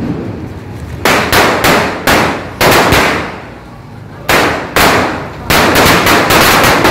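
A Gnanavel Blue Tube 5000 wala firecracker string bursting along the ground: sharp bangs going off in quick, irregular clusters, with a lull of about a second in the middle before a dense run near the end.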